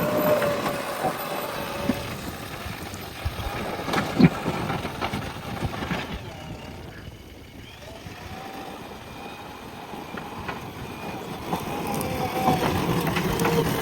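JCB backhoe loader's diesel engine and hydraulics working. The engine eases off about six seconds in and builds up again near the end, with a sharp knock about four seconds in.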